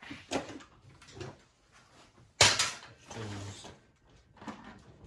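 Rummaging through tools and parts: scattered clicks and rustles, with one sharp, loud clack about two and a half seconds in.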